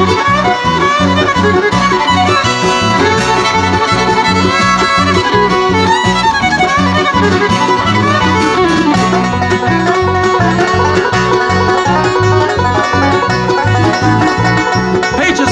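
A live bluegrass band playing an instrumental, with the fiddle bowing the lead over banjo, mandolin and electric bass keeping a steady beat. The camera turns to the banjo near the end, and the banjo is strong in the tags for the following seconds, which fits the banjo taking the next break.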